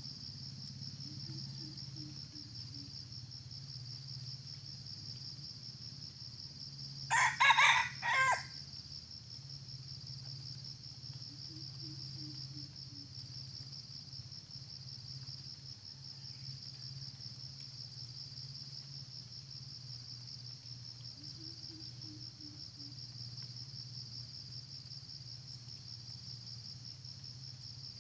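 Red junglefowl rooster crowing once, a short broken crow about seven seconds in, over a steady high drone of insects.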